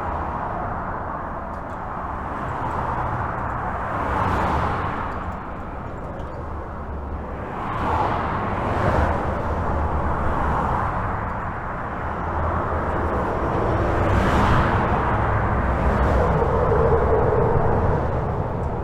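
Highway traffic heard from under a bridge: a continuous rumble of tyres and engines, swelling every few seconds as individual vehicles pass, with a low tone from a heavier vehicle near the end.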